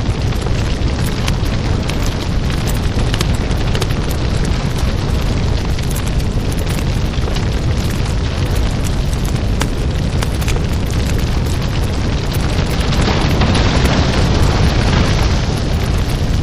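Burning-house sound effect: a large fire burning, a steady low rumble with constant crackling and pops, swelling louder for a couple of seconds near the end.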